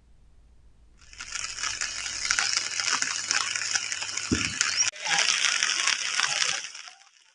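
Steady hiss of rushing floodwater, strongest in the high range. It breaks off sharply about five seconds in, resumes, and fades out just before the end.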